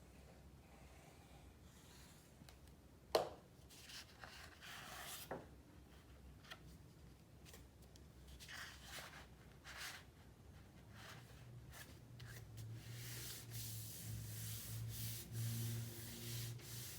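Paper and cardstock being handled and rubbed down by hand, faint, with a sharp click about three seconds in. A steady low hum with a hiss comes in during the last few seconds.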